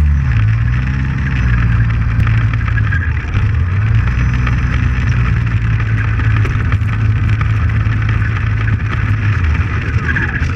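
Art-Tech Wingtiger RC trainer plane's electric motor and propeller running steadily, heard from a camera on the wing just behind the prop, with heavy prop-wash rumble on the microphone. Its pitch shifts briefly in the first second as the throttle changes.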